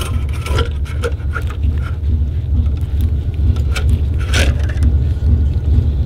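Steel fork coil spring being slid down over a cartridge damper rod and hose, its coils scraping and clicking as they go, with one louder clack about four and a half seconds in. A steady low hum runs underneath.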